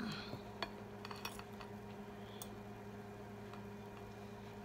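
A few faint, sharp clicks of a metal fork and spoon against a ceramic plate, scattered irregularly over a steady low hum.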